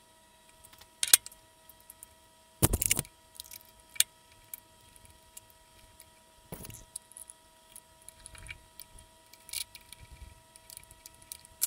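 Scattered metal clinks and knocks of a steel 5C collet chuck being set onto a lathe spindle nose and handled, the loudest clatter about three seconds in, over a faint steady hum.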